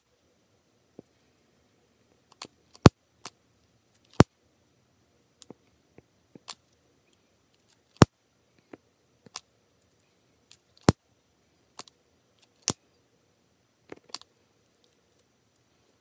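Sharp, isolated clicks at irregular intervals, about a dozen of them, with near silence between; the loudest come about three, four, eight and eleven seconds in.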